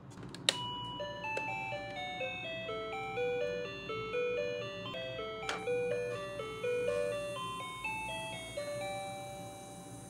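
A click, then a simple electronic beeping melody of single notes from a toy refrigerator's music button, with another click about halfway through; the tune ends shortly before the end.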